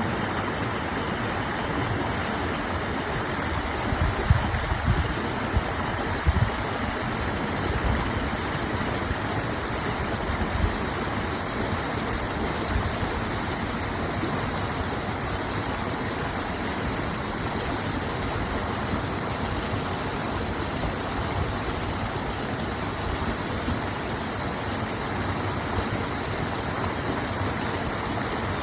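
Flowing water running steadily, like a stream or small waterfall, with a few low thuds about four to eight seconds in.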